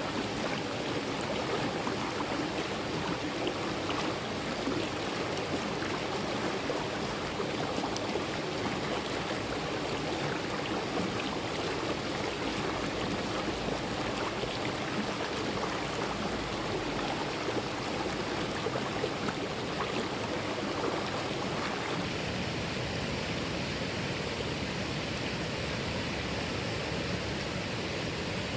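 Mountain valley stream flowing over rocks: a steady rush of running water. About two-thirds of the way through, the tone shifts a little duller.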